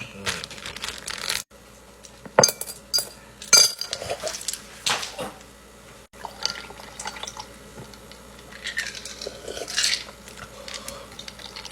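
Short clinks and clatters of kitchenware, with some liquid sounds, broken by a few abrupt cuts.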